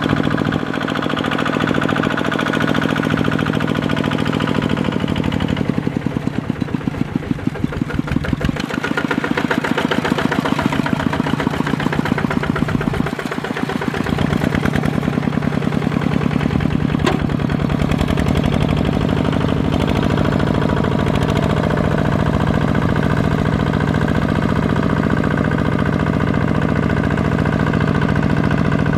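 Kubota RT155 single-cylinder diesel engine of a two-wheel walking tractor running steadily with a rapid, even beat, under load as it drives cage wheels and a disc plough through flooded paddy mud.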